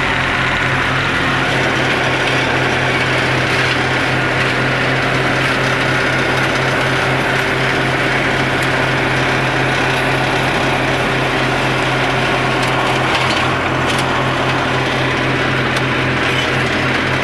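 Tractor engine running steadily with a Maschio BC 160 flail mulcher hitched behind on the PTO: a loud, even mechanical drone with a pulsing low throb.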